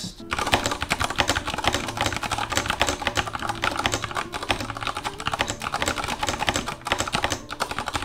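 Continuous fast typing on an OG80 Wormhole mechanical keyboard with Cherry MX Brown tactile switches, a dense run of key clacks. They are decently loud, not muffled but far from the clicky switches. Background music plays underneath.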